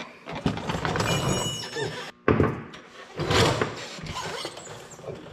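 Metal scraping and squeaking as the left brake assembly of a Ford 3000 tractor is worked back and forth onto its keyed shaft, in several rough strokes with a brief squeal in the first two seconds.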